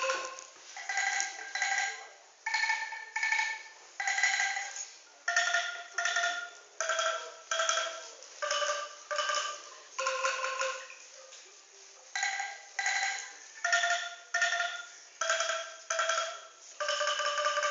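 Angklung, tuned bamboo tubes shaken in their frame, playing a slow melody. Each note is a short rattling tremolo, and the notes mostly come in pairs with brief pauses between phrases.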